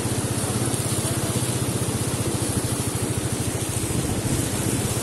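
Small scooter engine running steadily with an even low pulse while the scooter rides through floodwater, over a constant rush of water around the wheels.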